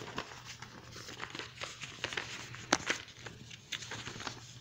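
A sheet of office paper, already folded into several layers, being folded and creased by hand: a run of dry paper crinkles and crackles, with one sharper crack a little past halfway.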